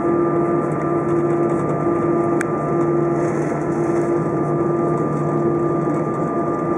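Steady cabin noise inside an Airbus A320 taxiing on the ground: the engines run at taxi power with a constant hum and a few steady whining tones. There is one faint click about two and a half seconds in.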